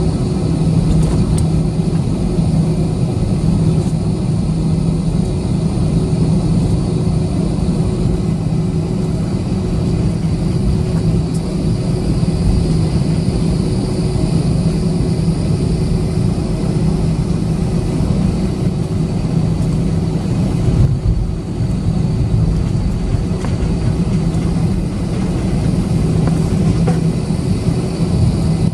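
Airbus A320-214's CFM56 turbofan engines at taxi power, heard inside the cabin: a steady low hum with a thin high whine as the jet taxis.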